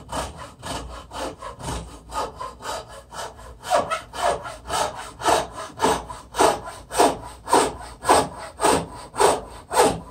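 Hand hacksaw cutting through wood with steady back-and-forth strokes, growing louder about four seconds in, at about two strokes a second.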